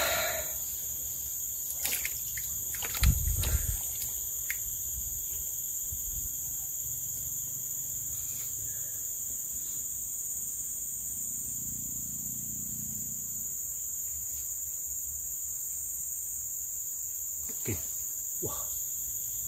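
A steady, shrill insect chorus drones at two high pitches. A few short knocks and rustles of handling sound over it, the loudest about three seconds in.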